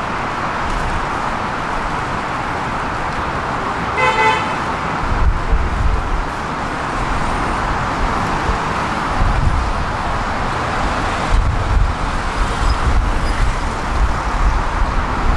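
Steady road traffic noise with a single short horn toot about four seconds in. Irregular low rumbles come and go from about five seconds on.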